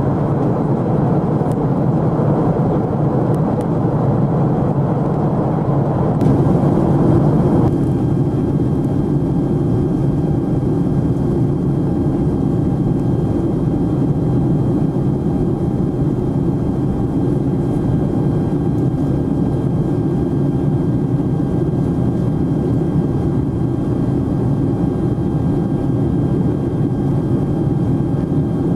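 Steady cabin roar of a Boeing 747SP in flight: turbofan engine and airflow noise heard from a window seat. After several seconds the sound changes abruptly, losing much of its upper hiss, and then runs on steadily.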